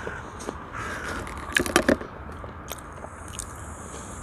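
A person chewing food, with soft mouth noises and a quick cluster of sharp smacking clicks about a second and a half in.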